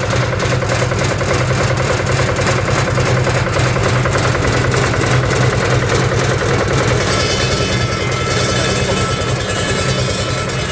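The Yanmar engine of a Tiger asphalt cutting machine running steadily. About seven seconds in, a strong high hiss joins the engine sound.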